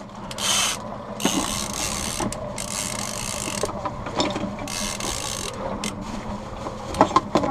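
Hands rummaging through a boat's storage compartment packed with gear, with plastic bags rustling and small items clicking against one another, in several spells.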